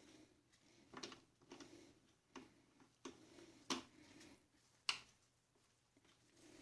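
Near silence, with a few faint, short clicks and taps, the two clearest a little over a second apart in the second half.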